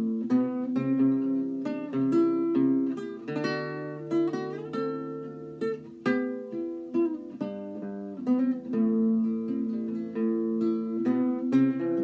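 Solo classical guitar with nylon strings, fingerpicked: an improvised folk-style tune of single plucked notes over ringing bass notes.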